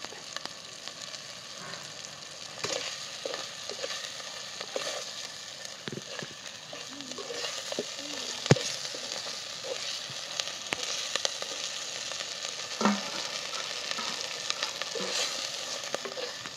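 Ground onion-and-spice paste with coconut frying in oil, sizzling steadily while a wooden spatula stirs and scrapes it around the pot. A few sharp clicks sound through it, the loudest about eight and a half seconds in.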